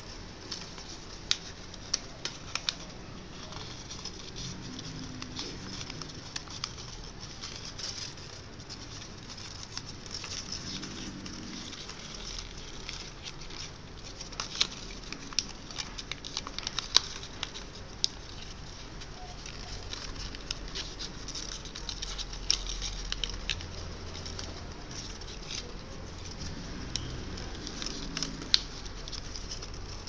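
Thin origami paper crinkling and crackling as hands fold and crease it, in many scattered sharp rustles over a steady low background hiss.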